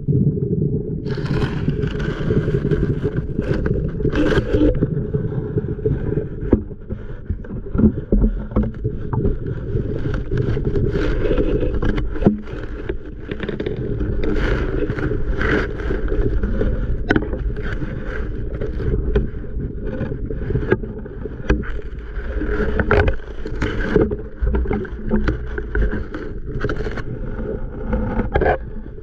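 Muffled underwater rumble picked up by a submerged camera, with frequent sharp knocks and clicks as the camera and the netting of the fish trap are jostled in the water.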